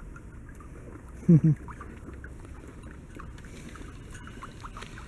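Two short, falling vocal calls from a person's voice about a second in, over a low rumbling background with scattered faint chirps and clicks.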